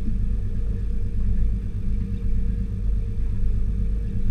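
Boat engine running steadily, a low rumble with a constant hum.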